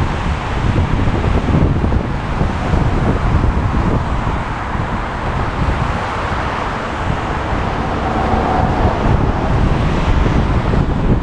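Steady wind rush over a GoPro's microphone and tyre and road noise of a car driving at highway speed, with a heavy low rumble.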